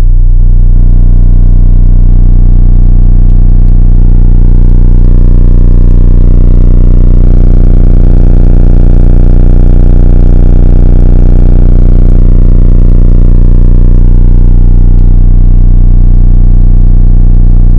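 A Boston Acoustics G5 10-inch subwoofer in a sealed box playing very loud, deep sustained bass at high cone excursion, its overtones shifting every second or so.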